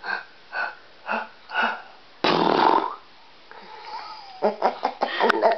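A man sneezing: four short breathy build-up sounds about half a second apart, then a loud sneeze a little after two seconds in. Near the end a toddler laughs in quick bursts.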